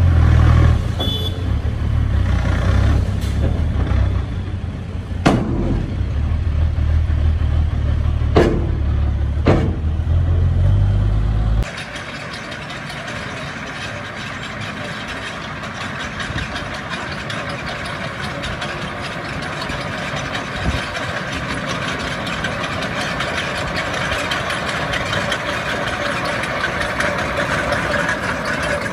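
Heavy diesel engine of earthmoving machinery running with a deep rumble, with a few sharp knocks. About twelve seconds in the deep rumble cuts off suddenly, leaving a quieter, steady, hissy machine noise.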